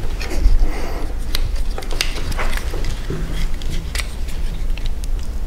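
Small plastic clicks and rubbing from a Transformers Wreck-Gar action figure being handled and its parts moved, with some paper rustling. The clicks are short and irregular, scattered throughout.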